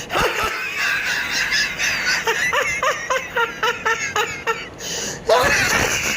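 Laughter in a run of short rising bursts, about three a second, with a louder voiced outburst near the end.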